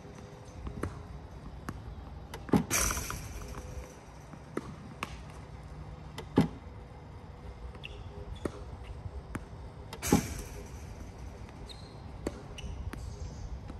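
Tennis Tutor ProLite battery-powered ball machine shooting tennis balls, a sharp pop three times at about four-second intervals. Fainter knocks of balls bouncing and being struck come between the pops.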